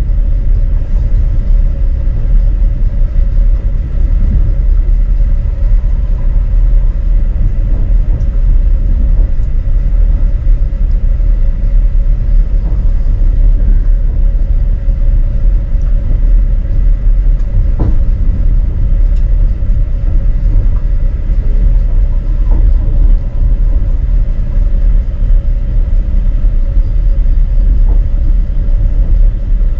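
Steady low running rumble of a moving passenger train heard from inside the carriage, with a faint constant hum over it.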